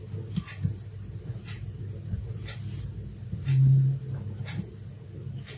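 Faint strokes of a marker pen on a whiteboard over a steady low hum, with a brief louder low hum about half a second long a little past three and a half seconds in.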